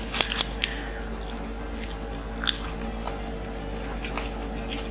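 Close-up eating sounds of fried chicken and lettuce: a few sharp crunchy bites near the start and again about halfway, with wet chewing in between. Faint background music runs underneath.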